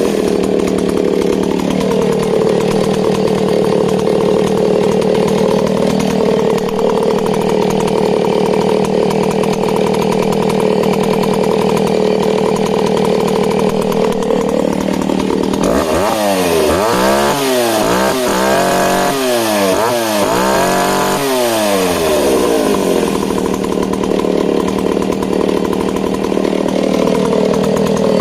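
Stihl S10 two-stroke chainsaw engine running steadily, then revved up and down several times in quick succession about halfway through before settling back to a steady run.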